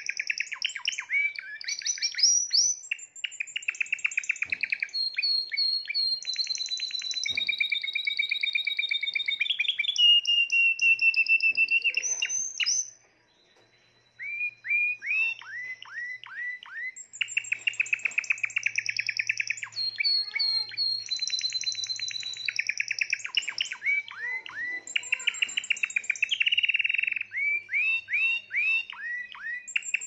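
Spanish Timbrado canary singing its song in long rolling trills of rapidly repeated notes and gliding whistles, changing phrase every few seconds. There is a pause of about a second near the middle.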